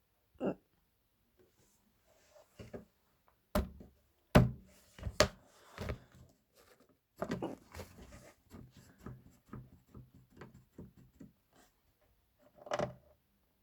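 Knocks, clicks and rattling taps from a subwoofer being handled during disassembly. The loudest knock comes about four seconds in, with a quick run of smaller taps in the middle and another thunk near the end.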